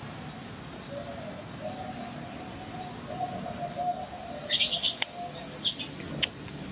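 Two short bursts of high-pitched chirping calls, about a second apart, a little past halfway, over faint wavering low calls. A single sharp click follows near the end.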